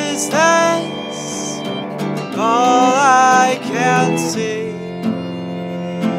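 A man singing with acoustic guitar accompaniment in a live acoustic performance, two long sung phrases over steady strummed chords.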